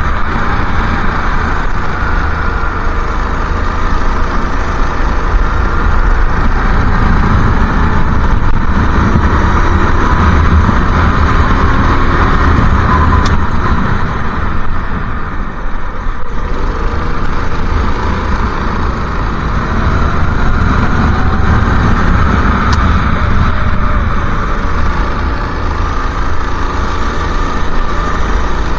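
Go-kart engine running at racing speed on an onboard camera, its pitch rising and falling with the throttle through the corners, under a heavy rush of wind and wet-track noise. The engine note dips briefly about halfway through.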